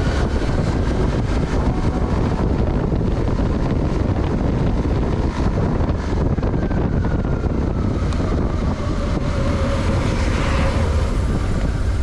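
Suzuki DL650 V-Strom's V-twin engine running at road speed, under heavy wind noise on the microphone and road rumble. A faint tone slowly falls in pitch partway through.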